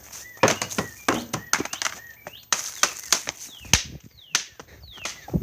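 A string of sharp, irregular knocks and clacks, about a dozen, alongside a small bird chirping short calls again and again.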